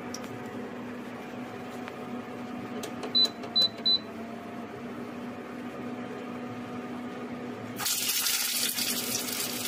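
Steady hum of an induction cooktop with three short electronic beeps about three seconds in. Near the end a stuffed bitter gourd goes into hot oil in a steel kadhai and the oil starts sizzling loudly.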